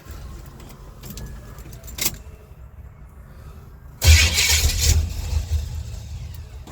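1976 Chevy Nova's small-block V8 running at a low idle, then revved hard about four seconds in and easing back down.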